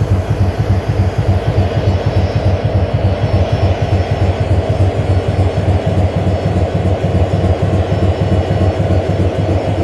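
EMD SD60 locomotive's 16-cylinder 710 two-stroke diesel running steadily, heard from the walkway and inside the engine compartment: a loud, low rumble with a fast, even pulsing.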